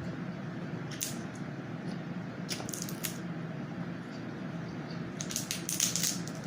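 Crab leg shell being cracked and pulled apart by hand: scattered sharp snaps and crackles, thickening into a quick cluster near the end, over a steady low hum.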